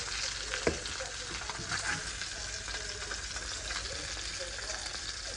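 Oil sizzling steadily in a cast iron skillet as a wooden spatula lifts a small fried tilapia out of the pan, with a sharp knock about a second in.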